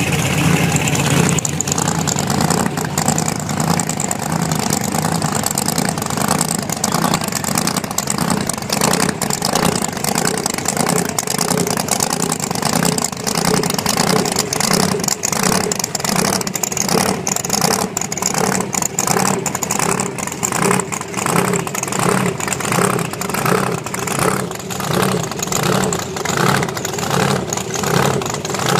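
Drag-race car engines at a strip: heavy revving with burnout smoke in the first half, then a single engine running with a rhythmic, pulsing idle as the car rolls toward the start line.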